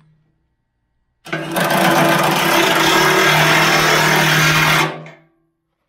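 Cordless impact driver running a 3/4-inch socket to tighten a clamp bolt down on a steel loader bucket edge. It starts about a second in, runs steadily for about three and a half seconds, and stops.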